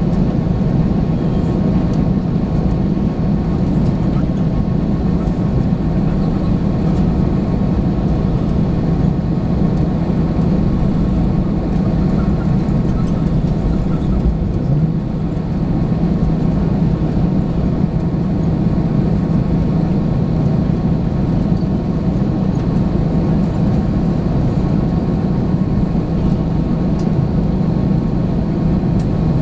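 Steady cabin noise inside an Airbus A321 airliner: a constant low drone from the engines under a rush of air, with no change in level.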